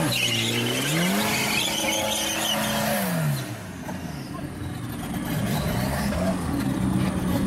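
Chevrolet Chevette doing a burnout. The engine revs up in the first second and holds high while the rear tyres spin and squeal. About three seconds in the revs drop, and the engine runs on at lower, wavering revs.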